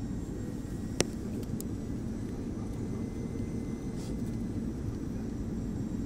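Airbus A320 in flight, heard from inside the passenger cabin: a steady low rumble of engines and airflow. A single sharp click sounds about a second in.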